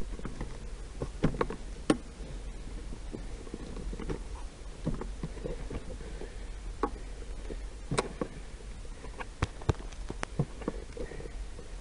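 Scattered, irregular clicks and light rustling over a steady low hum: the handling and movement noise of a hunter moving with a rifle.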